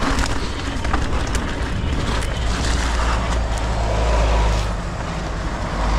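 Full-suspension mountain bike riding down a rough dirt trail: wind rumbles on the microphone over a steady hiss of tyres on dirt and rock. Short clicks and rattles come from the bike over the bumps throughout.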